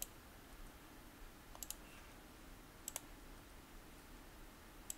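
Faint clicks of a computer mouse: four quick double clicks (button press and release) about a second or more apart, over faint room hum.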